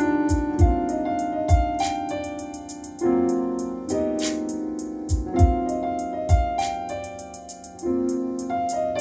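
Instrumental jazz background music: piano chords over a drum beat with steady cymbal ticks and low bass drum hits.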